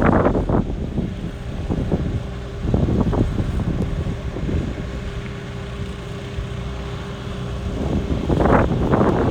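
New Holland T4.110F tractor's diesel engine running steadily under mowing load. Wind buffets the microphone in gusts near the start, about three seconds in, and again near the end.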